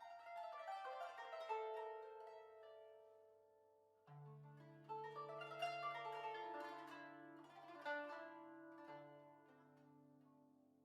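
Instrumental music on plucked strings: a run of quickly plucked notes that ring and fade, then a second phrase about four seconds in with low bass notes beneath, dying away near the end.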